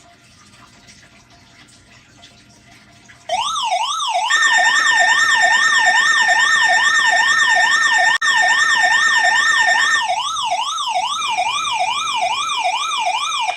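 NOAA weather radio receivers sounding their alert alarms, set off by the SAME header of a weekly test: after about three seconds of faint radio hiss, a loud warbling siren starts, rising and falling about twice a second. A steady high beep runs over it for several seconds, and a higher steady tone comes in near the end.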